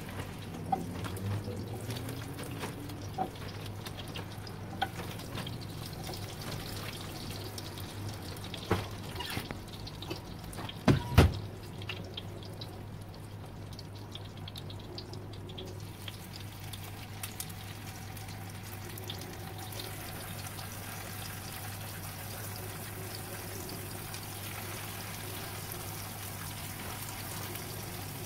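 Home kitchen work sounds over a steady low hum: scattered light clicks and clatter, with two louder knocks near the middle. A soft sizzle of tofu frying in oil starts in the last third.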